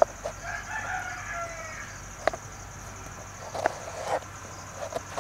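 A knife chopping a carrot on a plastic cutting board, a handful of sharp, irregular taps. In the background a rooster crows once, a drawn-out call that falls in pitch, about a third of a second in.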